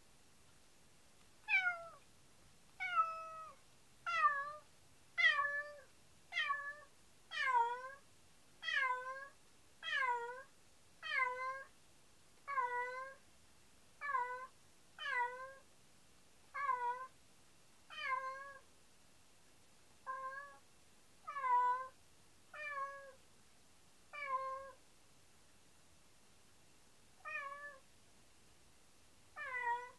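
A domestic cat meowing over and over, about one drawn-out meow every second or so, with a short pause near the end. It is the plaintive calling of a cat left alone in the room.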